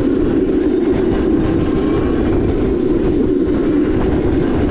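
Electric Crazy Cart drift kart rolling at speed over a paved path: a steady rumble of its small hard wheels and casters on the pavement, under the running drive.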